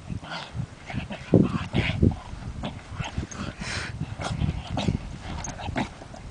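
A border terrier rolling on its back in dry, gravelly dirt: irregular scuffing and scraping against the ground, mixed with the dog's own short grunting noises, loudest at about one and a half and two seconds in.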